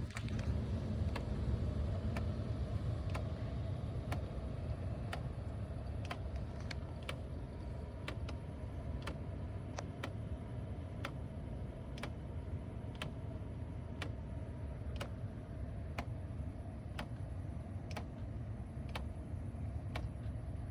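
Regular ticking about once a second in a Mercedes CLK (C209), over a steady low hum. The tick is still there after both footwell flap actuators of the climate control were replaced.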